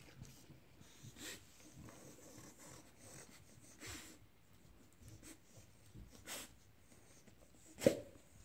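Dogs sniffing and snuffling with their noses pushed into the holes of a plush hide-a-squirrel toy, with soft rustles of the fabric. A short, sharp sound near the end is the loudest.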